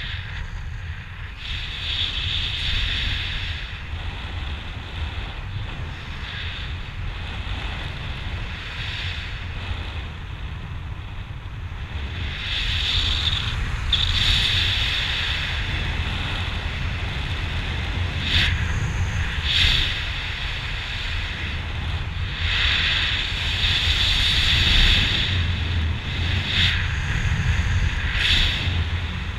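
Wind rushing over a helmet camera's microphone under an open parachute canopy: a steady low buffeting with a hiss that swells and fades in gusts, growing louder about halfway through.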